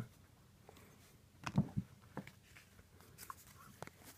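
Faint clicks and rustles of trading cards being handled and flipped through by hand, with a slightly louder tap about a second and a half in.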